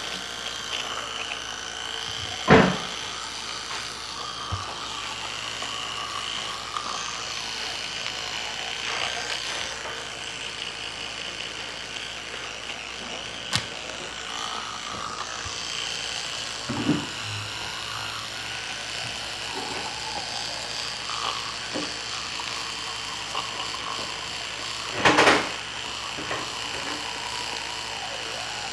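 Electric toothbrush buzzing steadily while brushing teeth, the pitch and level wavering slightly as it moves in the mouth. Two louder knocks, about two seconds in and near the end, with a few fainter ones between.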